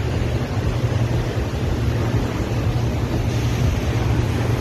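Truck crane's diesel engine running steadily under load as it hoists a wrecked car, a constant low hum under a rushing noise.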